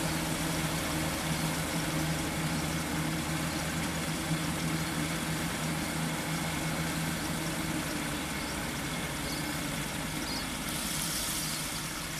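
Kubota compact rice combine harvester running steadily as it cuts and threshes standing rice, a continuous engine hum with machinery noise. Near the end a higher hiss joins.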